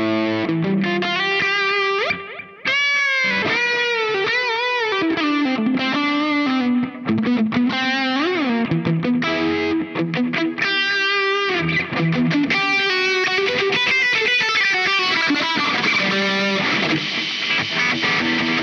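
Electric guitar through the Caline Key West pedal, its Diamond-style compressor and Zendrive-style overdrive both on with the controls turned up full. It plays a sustaining overdriven lead line with string bends and vibrato, with a brief break about two and a half seconds in.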